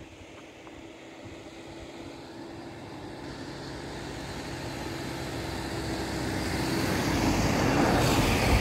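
A road vehicle approaching and passing close by, its noise growing steadily louder over several seconds and peaking near the end as it goes past.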